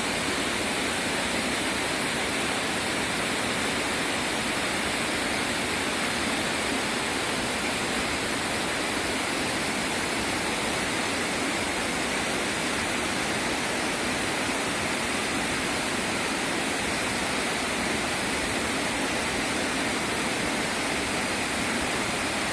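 Waterfall rushing steadily, a dense, unbroken roar of falling water.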